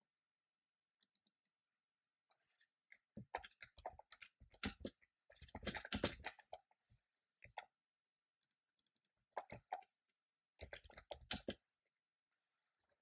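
Typing on a computer keyboard in two short runs of quick key clicks, separated by a pause.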